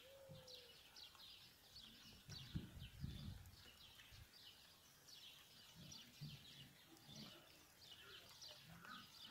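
Faint chorus of small birds chirping quickly and without pause, with a few low rumbles on the microphone about two and a half to three seconds in.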